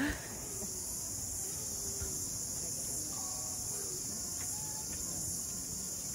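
Steady high-pitched shrilling of insects, with a low hiss underneath and a few faint short calls.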